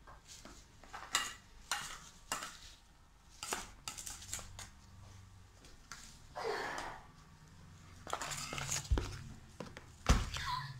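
Metal spoons stirring a thick mixture of glue, shaving foam and sprinkles in a stainless-steel bowl and on a plate, with irregular clinks and scrapes of spoon against the dish.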